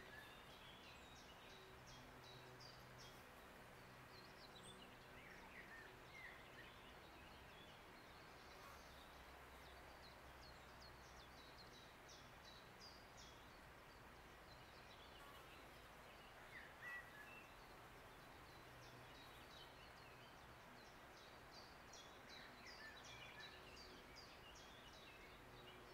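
Near silence: faint outdoor ambience of steady hiss, with scattered high chirps of small birds throughout and a faint low hum that comes and goes. The heron itself makes no audible call.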